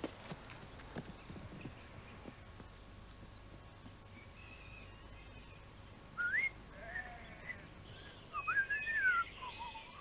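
A boy whistling a soldiers' song, a melody of gliding notes that starts about six seconds in. About two seconds in, a bird gives a quick run of high chirps.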